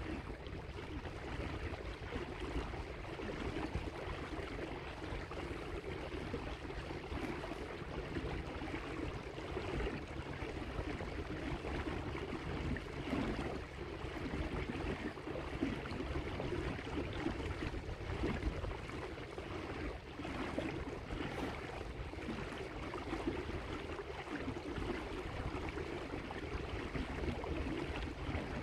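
Water lapping and splashing steadily against the hull of a small electric boat moving slowly over choppy water.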